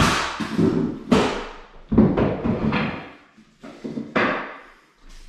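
Knocks from hardwood flooring being installed: about six sharp, irregular impacts, each with a short ring, the last falling off near the end.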